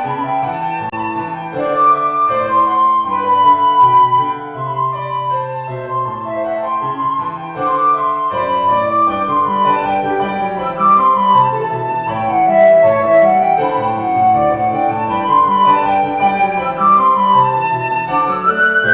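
Flute and piano duet: the flute plays a flowing melody of held and stepping notes, rising and falling in arcs, over a piano accompaniment.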